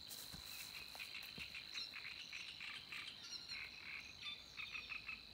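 A steady, high insect trill like crickets, with short repeated pulses beneath it and a few brief bird chirps.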